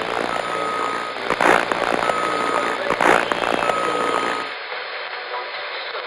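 Radio static: a steady hiss carrying three evenly spaced beeps, each about half a second long, with two louder crashes of noise between them. About four and a half seconds in, it gives way to a narrower hiss with a faint voice in it.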